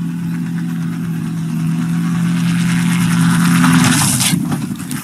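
Light gyroplane's engine running steadily at takeoff power, growing louder, then a burst of crashing noise about four seconds in as the gyroplane tips over, and the steady engine note stops.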